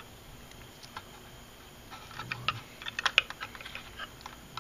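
Small plastic clicks and rattles of three-pin ESC connector leads being handled and plugged onto a KK flight-controller board. A sharp click comes at the start and another about a second in, then a quick run of clicks from about two to three and a half seconds in.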